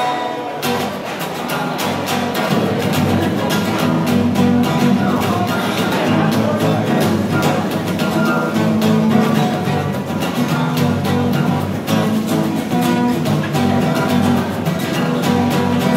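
Acoustic guitar strummed hard in a fast, steady rock-and-roll rhythm.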